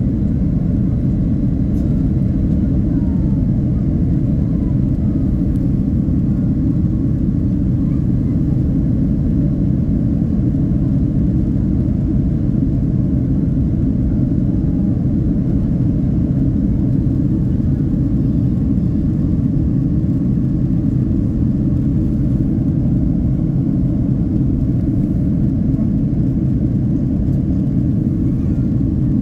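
Steady low rumble inside the passenger cabin of a Boeing 767-300: engine and airflow noise, even and unchanging throughout.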